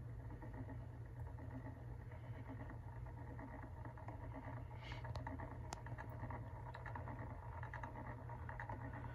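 Quiet, steady low hum, with a few faint ticks about five to six seconds in.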